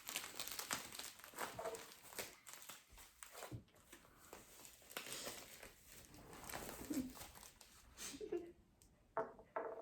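Faint rustling and crinkling of packaging being handled and unwrapped, broken by a few short, soft vocal sounds.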